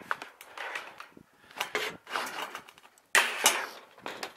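Irregular clunks, rustles and scrapes of steel roofing being handled and positioned on the roof, with one sharp, loud scrape about three seconds in. The drill is not running.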